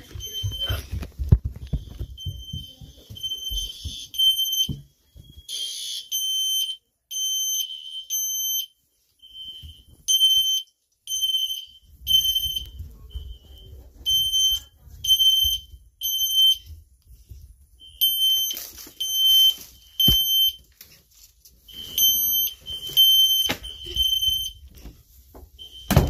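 Fire alarm horns sounding a high-pitched electronic tone in repeated short blasts with brief gaps between them.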